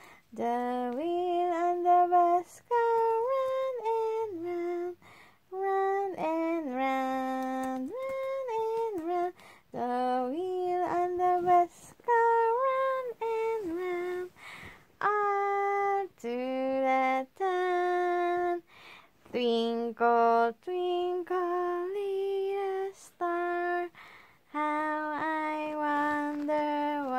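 A woman singing a slow song in short phrases of held notes, with brief breaks between them.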